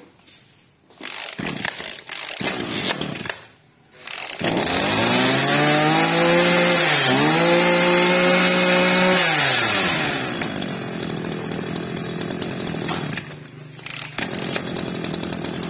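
Shindaiwa 24cc two-stroke brush cutter engine being pull-started on its assisted recoil starter, catching about four seconds in. It revs high for several seconds with a brief dip in the middle, then drops back to a steady idle.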